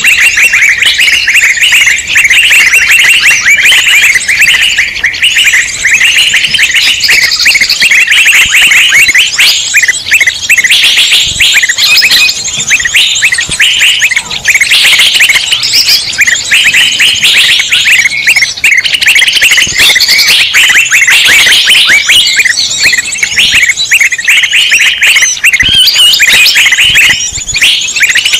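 A dense chorus of many small birds chirping and chattering over one another without pause, loud and continuous: a mixed-bird 'ribut' lure recording used to draw in wild birds.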